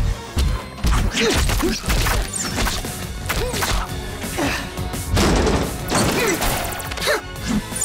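Cartoon action-scene sound: dramatic background music under a series of crashes and heavy impacts, the loudest being a car smashing down onto the street about five to six seconds in.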